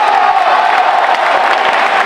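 Spectators shouting and cheering at a boxing match, with scattered clapping.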